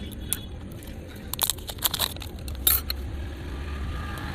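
A handful of sharp snips and clicks from cutting and handling thin battery wire, over a low steady hum.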